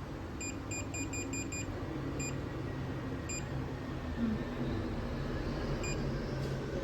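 Electronic beeper: a quick run of about six short, identical high beeps, then three single beeps spaced a second or more apart, over a steady low hum.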